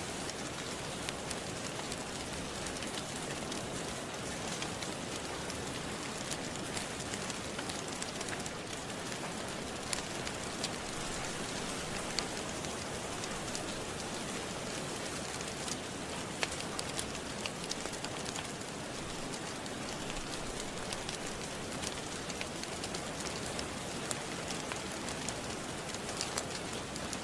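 Steady rain falling, with scattered sharp crackles and pops of a wood fire.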